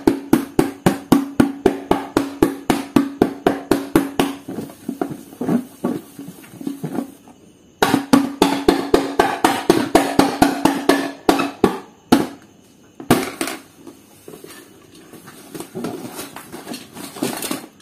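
Rapid, evenly spaced drum-like hits, about five a second, that fade out after about four seconds, break off briefly, start again about eight seconds in and thin out toward the end.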